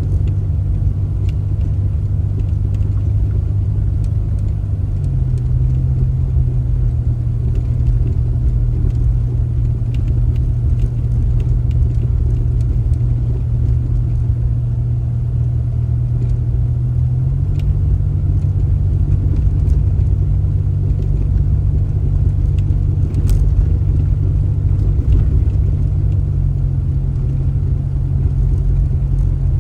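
Steady low rumble of a car's engine and road noise while driving. The low hum steps to a new pitch about five seconds in, again a little past halfway, and once more near the end.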